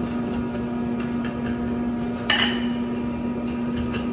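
Crushed barbecue potato chips crackling and crunching as hands press and turn a pork chop in them in a glass bowl, with one sharp clink about two seconds in. A steady low hum runs underneath.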